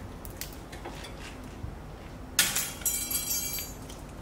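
Hand tool clicking and scraping against the metal of a front brake caliper: a few light taps, then a sharp metallic clink about two and a half seconds in, followed by about a second of scraping rattle.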